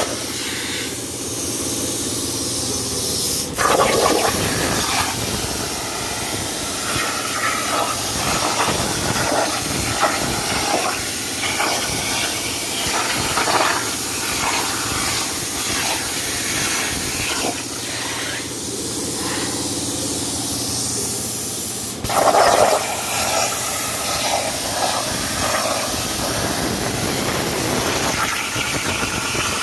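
CNC plasma torch cutting sheet steel: a steady, loud hiss of the plasma arc. About 3.5 s in and again about 22 s in there is a sharp crack followed by a louder burst, as the torch pierces the sheet to start a new cut.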